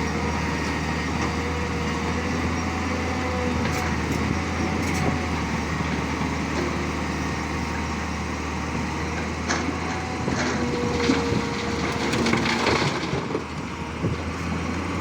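Excavator's diesel engine running steadily with a low drone, with scattered knocks and scraping, busiest from about ten to thirteen seconds in.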